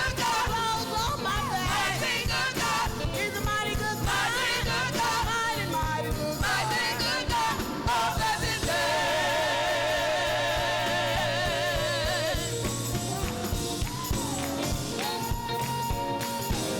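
Gospel music in a church service: singing over a band with drums and bass. About halfway through, a singer holds a long note with vibrato.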